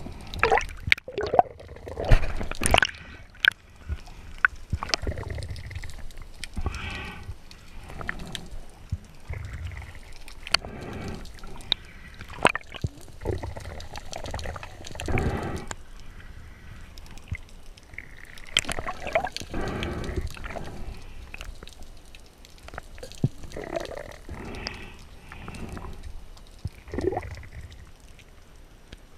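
Sea water gurgling and sloshing around a spearfisher's camera, swelling every few seconds, with scattered sharp clicks.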